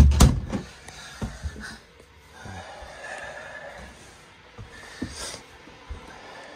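A loud thump that dies away quickly, then a few lighter knocks and a drawn-out breathy noise.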